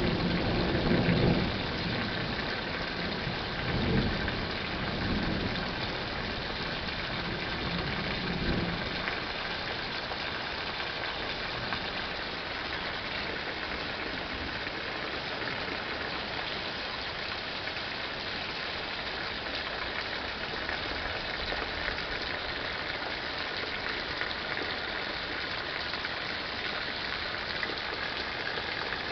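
Thunder rumbling in several swells and dying away over the first nine seconds or so, then steady rain falling.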